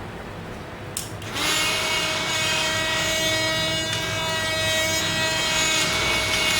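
Drilling machine running, a steady whine with a rasping edge, starting after a click about a second in and running at an even speed until it stops at the end.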